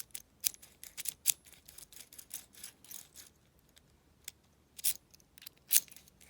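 Light metallic clicks and rattles, irregular, a few per second, of a key being worked and wiggled in a cheap, loose deadbolt cylinder. The two loudest clicks come near the end.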